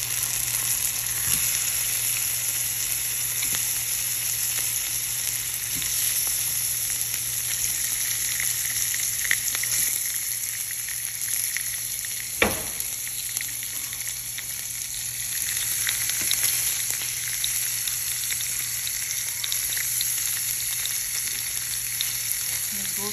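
Ham frying in a pan, a steady sizzle throughout, with one sharp tap about halfway through.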